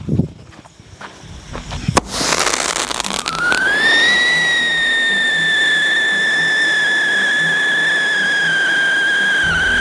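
Whistling spark fountain firework. A sharp click comes about two seconds in, then a dense crackling hiss, and about a second later a loud whistle rises in pitch and holds nearly steady over the hiss.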